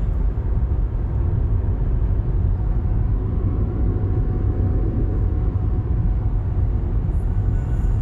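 Car driving along a road: steady low rumble of road and engine noise.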